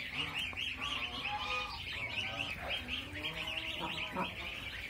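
A flock of ducklings peeping together in a dense, continuous chorus, with a few lower calls in between. The birds are frightened and keeping away from the person in the coop.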